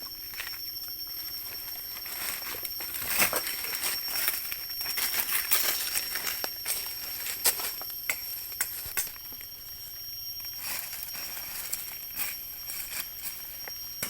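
Footsteps crunching and crackling through leaf litter and twigs on the forest floor, busiest in the middle. Under them, forest insects drone steadily in a high pitch.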